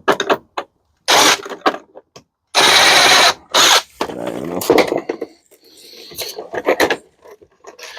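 Handheld power drill/driver run in a few short bursts while parts of a scrap dishwasher are taken apart, the longest burst just under a second about two and a half seconds in, with knocks and rattles in between.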